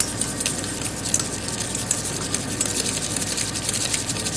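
Wire whisk beating egg whites, thinned with a little water and tomato paste, in a stainless steel pot: a quick, continuous clicking of the wires against the metal. The whites are being whisked to clarify a consommé.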